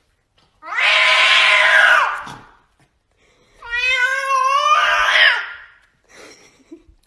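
A cat yowling twice, each call long and drawn out for close to two seconds: the first rough and raspy, the second clearer in pitch and rising slightly at the end.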